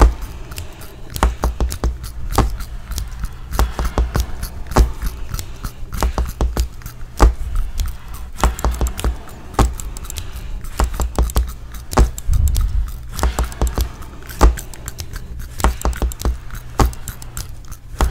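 Irregular string of sharp clicks, taps and clinks of small hard objects, several a second, with low thuds beneath some of them.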